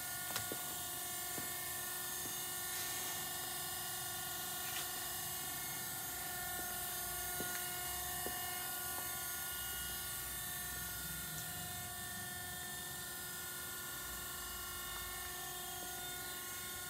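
Steady machine hum with a high whine made of several steady tones, as from an electric motor or pump running, with a few faint clicks near the start.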